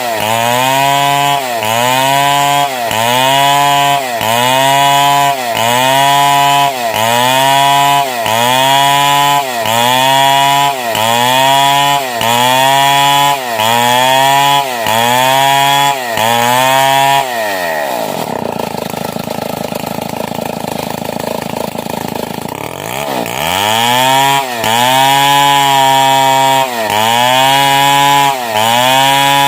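Stihl 070 two-stroke chainsaw ripping a log lengthwise, its engine pitch dipping and climbing back about once a second as the cut loads it. Past the middle the engine drops to a low idle for about five seconds, then revs back up and cuts on.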